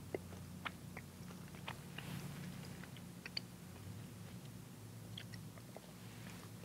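Quiet church sanctuary room tone: a faint, steady low hum with scattered small clicks and ticks.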